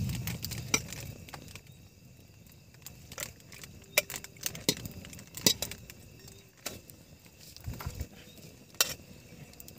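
Steel serving spoon clinking and scraping against steel dishes as chicken pieces are scooped from one plate into another, in a scattering of short sharp clinks.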